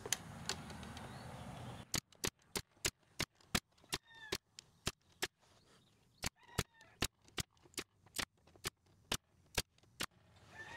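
Pneumatic staple gun driving 18-gauge staples into beehive frame top bars: a quick run of sharp clicks, about three or four a second, beginning about two seconds in with a short pause partway through.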